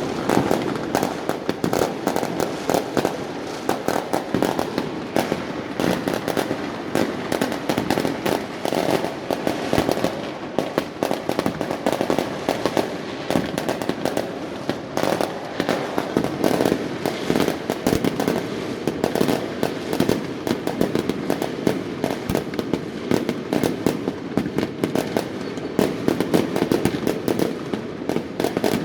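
Fireworks and firecrackers going off without pause: a dense, continuous barrage of rapid cracks and bangs.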